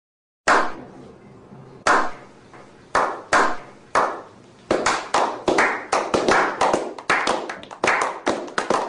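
A small group's slow clap: single hand claps at first, about a second apart, speeding up to about three a second as it builds into applause.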